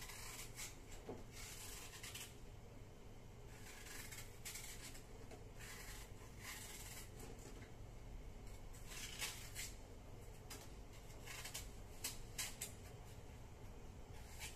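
Faint, irregular rubbing strokes, some short and some drawn out over a second.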